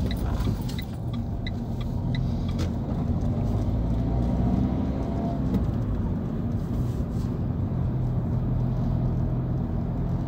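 Car engine and tyre noise heard from inside the cabin as the car pulls away from a stop and accelerates, the engine note rising and dipping as it picks up speed. A turn indicator ticks lightly for the first couple of seconds, then stops.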